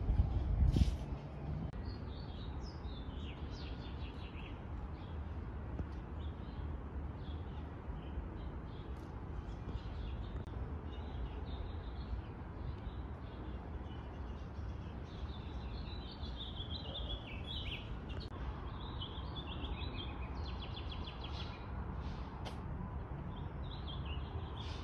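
Small birds chirping in short, repeated calls over a low, steady rumble, with a brief thump a little under a second in.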